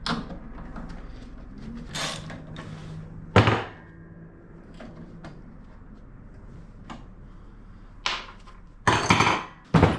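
Scattered sharp knocks and clunks of the sandwich press's metal parts and tools being handled while it is unbolted. The loudest comes about three and a half seconds in, and a quick cluster comes near the end.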